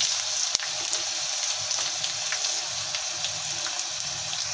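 Chana dal, dried red chillies and garlic frying in hot oil in a clay pot: a steady sizzle with a few sharp crackles, the loudest about half a second in.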